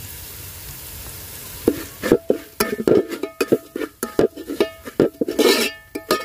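Steel ladle stirring spice powder into frying onions in a steel pot: after a faint sizzle of oil, a rapid run of scrapes and knocks of metal on metal, the pot ringing briefly with each strike.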